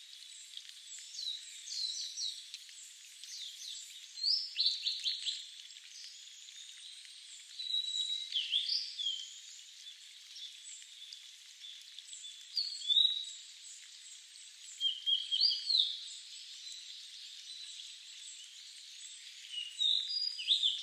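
Several distant birds chirping, with clusters of short high chirps and quick whistles every few seconds over a steady hiss.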